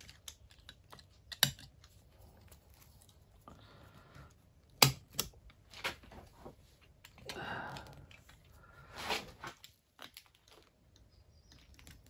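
Circlip pliers working a large circlip into the steel hub carrier of a Lotus Elan Chapman strut: scattered light metallic clicks and scrapes. The sharpest clicks come about a second and a half in and about five seconds in, with short scraping stretches between.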